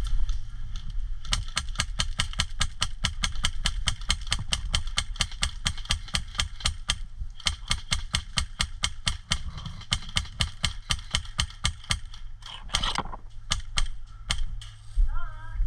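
Airsoft rifle firing a long string of rapid, evenly spaced shots as suppressive fire, breaking off about twelve seconds in, followed by a few more scattered shots near the end.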